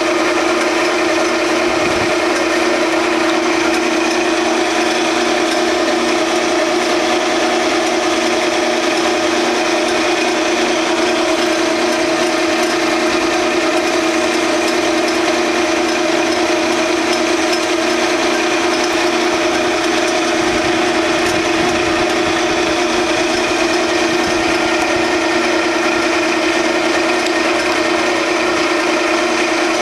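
Grizzly G0602 10x22 metal lathe running with a steady hum under power feed while a scissor knurler's wheels roll and rub a checkered knurl into the spinning aluminum workpiece.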